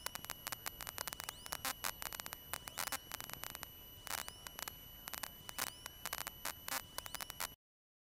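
Faint electrical static on the cockpit audio feed: irregular crackles and clicks over a steady high whine, with a rising chirp repeating about every second and a half. It cuts off to dead silence near the end.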